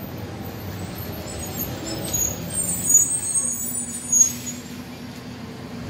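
Motor vehicle noise: a steady low rumble, with two brief louder swells about three and four seconds in that carry some high hissing tones.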